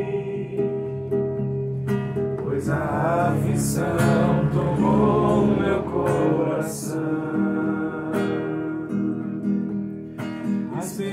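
Acoustic guitar strummed slowly as accompaniment to a male voice singing a hymn in Portuguese.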